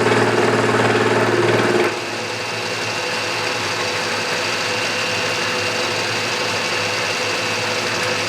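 Milling machine with its cutter taking a cut across a metal flange, a dense chattering machine sound. About two seconds in the cut ends abruptly and the spindle runs on alone with a steady, quieter hum and a thin high whine.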